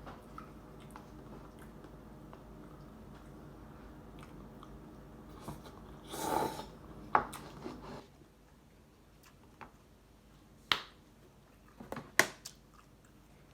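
Mouth sounds of a man eating instant ramen noodles: quiet chewing, a brief rushing sound about six seconds in, and several sharp lip-smack clicks later on.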